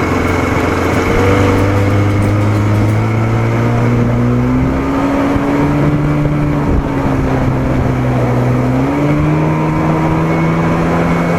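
1987 Johnson 40 hp two-stroke outboard motor running with the boat under way, its pitch stepping up about halfway through and again near the end as the throttle is opened.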